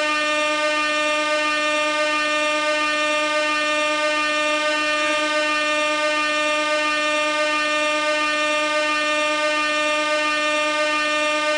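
Compressed-gas air horn sounding one long, unbroken note at a steady pitch and level.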